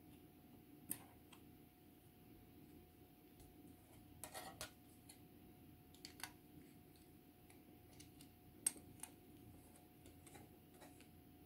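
Scattered light clicks and taps of plastic model-kit parts and hobby tools being handled on the bench: a single click about a second in, a short cluster a little past the middle, and a sharper click near the end, over a faint steady hum.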